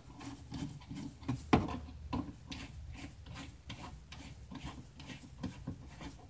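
Screwdriver turning a cross-head screw in a plastic under-bumper panel, a run of short scraping clicks several times a second with one louder click about a second and a half in, as the screw is backed out.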